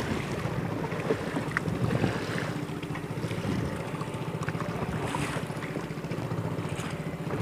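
Wind buffeting the microphone over choppy sea water slapping and splashing around a small wooden paddled boat, with the splash of paddle strokes in the water.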